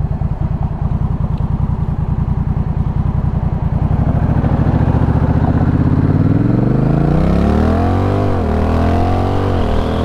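Honda Rebel 1100 DCT's parallel-twin engine running through a Coffman's Shorty slip-on exhaust, heard from the rider's seat. It pulses steadily at low revs, then revs up from about six seconds in, and the pitch drops back twice near the end as the gearbox shifts up.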